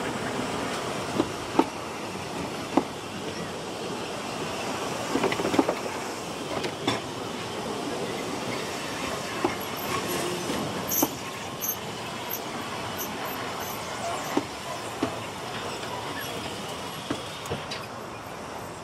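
Narrow-gauge railway carriages rolling slowly, a steady rumble with wheels knocking over the rail joints at uneven gaps. Short high wheel squeals come about halfway through.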